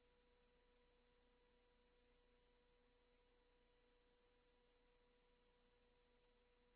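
Near silence: only a very faint, steady whine of a few thin tones under a low hiss.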